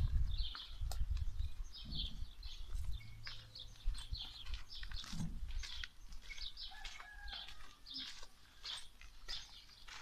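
Small birds chirping over and over in short high calls, with a low wind rumble on the microphone over the first few seconds.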